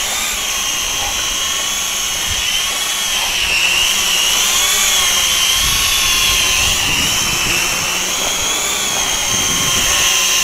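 XK X300 quadcopter hovering low and close, its motors and propellers giving a steady high whine that wavers slightly in pitch as it holds position against the wind. Low wind rumble on the microphone comes and goes.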